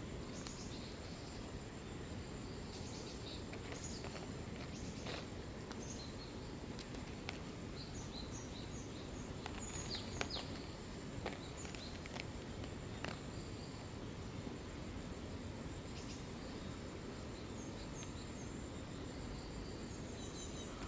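Outdoor ambience: a steady low background rumble with a thin, constant high-pitched tone, and scattered faint short chirps and ticks.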